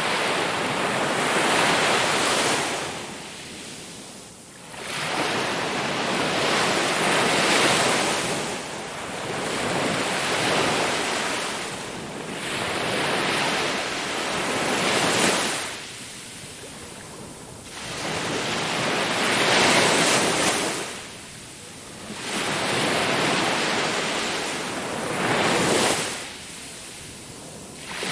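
Sea waves rushing in and breaking, each wash of surf swelling and falling away, with brief quieter lulls between waves every few seconds.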